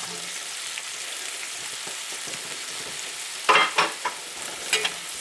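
Sliced apples and onions sizzling as they fry in butter, a steady hiss, with a few short utensil noises from stirring about three and a half seconds in and again near the end.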